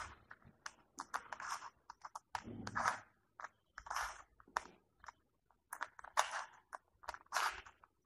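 Plastic 3x3 Rubik's cube being twisted by hand: a faint, irregular run of clicks and short scraping rasps as the layers are turned one after another through a solving algorithm.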